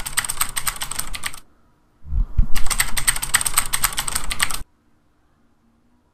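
Typing sound effect: rapid key clicks in two runs. The first stops about a second and a half in. The second starts with a low thump about two seconds in and cuts off suddenly a little after four and a half seconds.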